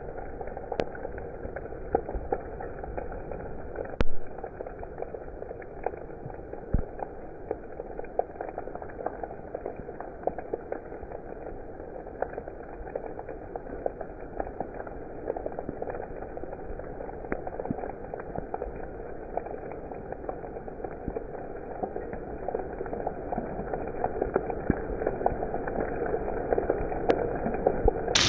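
Steady rain, a continuous hiss of falling water with many small drop ticks through it and one louder tap about four seconds in. It sounds dull, with no high end.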